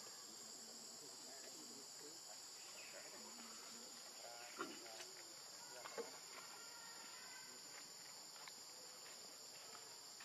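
Steady high-pitched insect chorus in the forest, with a couple of brief sharp clicks about four and a half and six seconds in.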